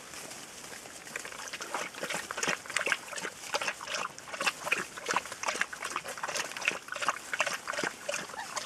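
A litter of young Rhodesian Ridgeback puppies squeaking and whining in many short, overlapping cries as they jostle at the teats to nurse. The cries come thicker from about two seconds in.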